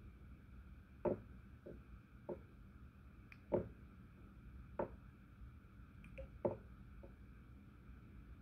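Light clicks and taps from fly-tying work at a vise, with tools and materials being handled: about eight short, uneven knocks over a faint steady hum.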